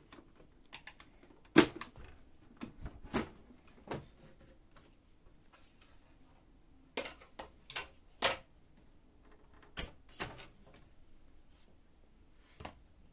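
Sharp plastic clicks and snaps as a laser printer's plastic side cover is pried and unlatched with a small flat screwdriver, a dozen or so separate clicks in uneven clusters with short gaps between them.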